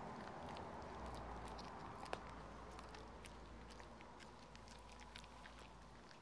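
Dog gnawing a raw beef rib: faint, irregular clicks and crunches of teeth on bone and meat, with one sharper click about two seconds in. A low rumble runs underneath and stops near the end.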